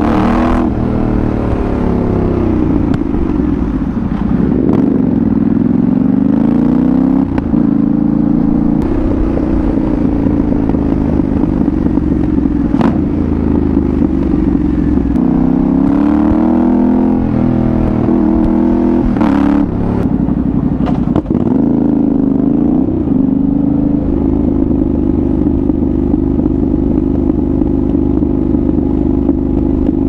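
A 2022 Yamaha Ténéré 700's 689 cc parallel-twin engine, through a Dominator GP1 exhaust, revving up and dropping back again and again while riding, with several short sharp cracks along the way. It settles to a steady pitch about three quarters of the way through.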